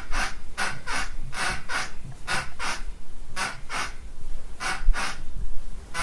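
Bed springs squeaking in a steady rhythm, in pairs of short squeaks about one pair a second.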